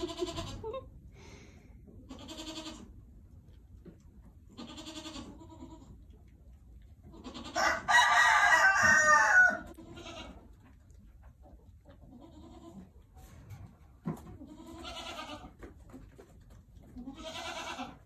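Farm animals calling: a rooster crows once, long and loud, about eight seconds in, amid shorter animal calls that come every two to three seconds.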